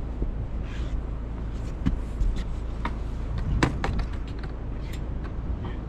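Scattered sharp clicks and knocks, the loudest about three and a half seconds in, over a steady low rumble of wind on the microphone.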